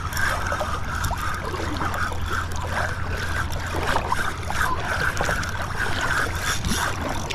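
Penn spinning reel being cranked hard against a hooked jack crevalle, its gears sounding rough in repeated bursts, like a cheap reel: it is overdue for servicing. A steady low hum runs underneath.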